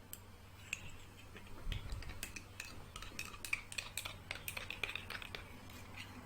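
A metal spoon clinking repeatedly against a glass of milk, a quick irregular run of clinks starting about two seconds in after a single dull knock.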